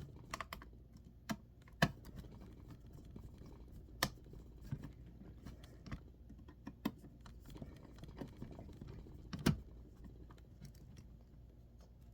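Irregular sharp clicks and taps of small hardware being handled as a laptop Wi-Fi card is worked into its slot on the motherboard, over a faint low hum; the loudest clicks come about two seconds in and near the end.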